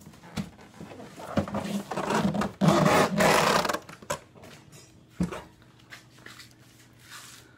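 A large cardboard printer box is handled and moved close by. A couple of knocks come first, then a loud scraping and rustling of cardboard lasting a second or so. A few single knocks follow.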